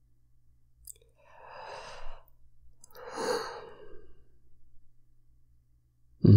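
A man sighs twice, two long breaths out about a second apart. Near the end comes a short, loud thump.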